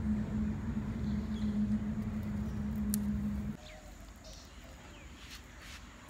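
A steady low mechanical hum with a held droning tone cuts off abruptly about three and a half seconds in, leaving quieter outdoor ambience with a few faint bird chirps.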